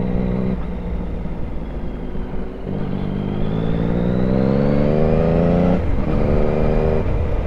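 Yamaha MT-series sport motorcycle engine under way, with a fuel map freshly tuned to cure its backfiring. It eases off about half a second in, then accelerates in a long rising pull, and about six seconds in shifts up and carries on.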